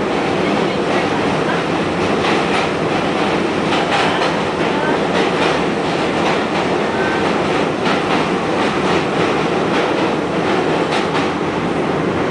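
Kawasaki R68A subway train running at speed on a steel bridge: a steady loud rumble and rattle, with irregular clusters of sharp wheel clicks on the rails.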